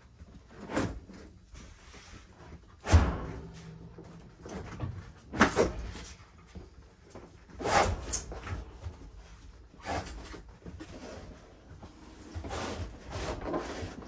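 Dometic RV absorption refrigerator being worked loose and slid out of its cabinet opening: a series of separate knocks and bumps, the loudest a sharp knock about three seconds in, with a cluster of smaller bumps near the end.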